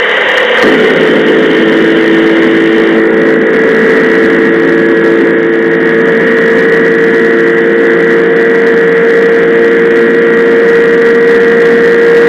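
An engine running at a constant high speed, holding one steady pitch with no revving up or down. It sounds as one loud, unchanging tone over a rough, noisy drone.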